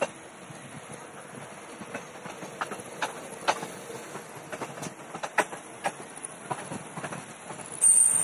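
Indian Railways passenger coach running, heard from its open doorway: a steady rumble with sharp, irregular clicks as the wheels cross rail joints. Near the end comes a brief, loud, high-pitched squeal.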